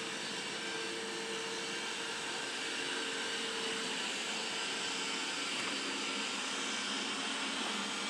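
Roborock E4 robot vacuum cleaner running steadily, an even whir from its suction fan and brushes with a faint hum.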